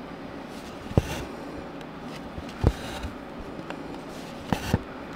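Hands working cross-stitch fabric stretched in a plastic embroidery hoop: a few small knocks and short brushing rustles as fingers and needle handle the cloth, the last two knocks close together near the end.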